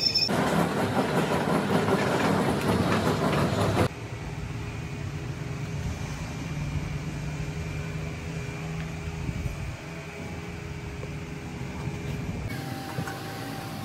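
Workshop machinery running, in separate cut-together stretches: loud, rough mechanical noise for the first four seconds or so, then a quieter, steady machine hum with a low drone, changing again suddenly near the end.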